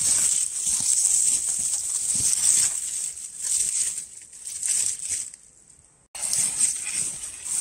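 Irregular crunching and rustling over a steady high hiss. It fades out, then cuts back in abruptly about six seconds in.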